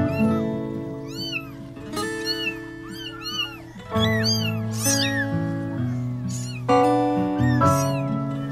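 Young kittens mewing again and again, short high calls that rise and fall in pitch, over background music.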